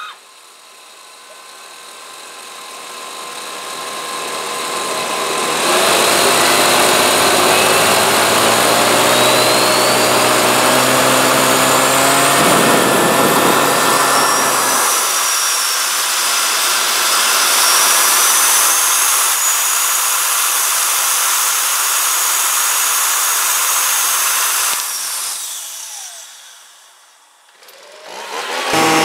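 Homemade turbojet built from a turbocharger being spun up by a leaf blower hosed into its intake: loud rushing air with a high turbine whine climbing in pitch. The blower's hum stops about halfway through, the rushing carries on, and then the turbo spools down with a falling whine near the end.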